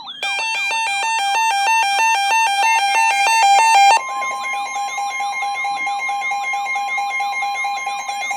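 Emergency alert tones from a broadcast: a rapidly repeating falling warble mixed with stepped beeps. About four seconds in it changes to a steady held tone with the warble still repeating over it.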